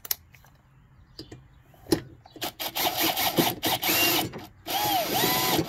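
Cordless drill with a socket extension running the nut on a lawn mower's blade, tightening it down in two short bursts with the motor whine rising and falling. A few sharp clicks come first as the socket is seated on the nut.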